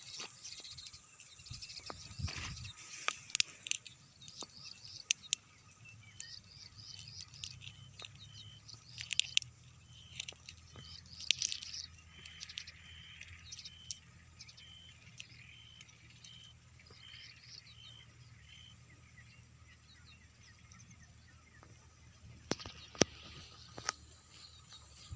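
A bird repeating a short high note about once a second over outdoor background, with scattered sharp crackling clicks and a faint low hum.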